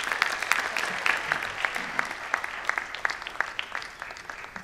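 Audience applauding, the claps thinning out and dying away toward the end.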